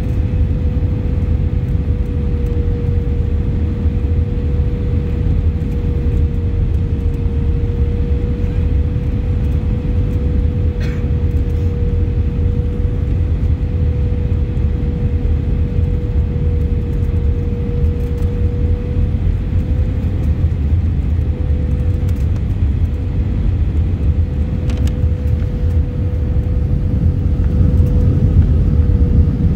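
Airbus A319 cabin noise on final approach, heard from a window seat over the wing: a steady low rumble of engines and airflow with a steady droning tone. It grows a little louder in the last few seconds as the aircraft nears the runway.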